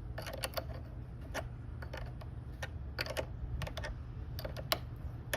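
Wrench tightening a battery terminal clamp onto its post: a series of uneven light metallic clicks, two or three a second.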